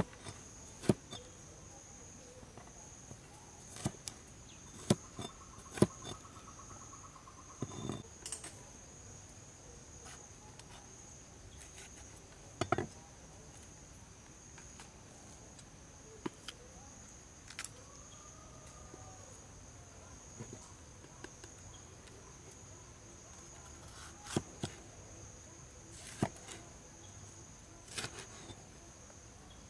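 A cleaver knocks sharply on a wooden chopping board as it cuts bell peppers: a dozen or so single knocks at uneven intervals. Under them runs a steady high-pitched insect drone.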